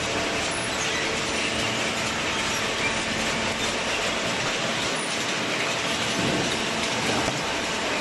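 Horizontal cardboard baler's inclined chain infeed conveyor running as it carries loose cardboard up into the machine, giving a steady metallic clatter and rattle.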